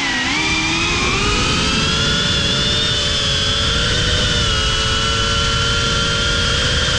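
FPV quadcopter's brushless motors and propellers whining in flight. The pitch dips just after the start, rises over about the first two seconds as the throttle comes up, then holds steady and high.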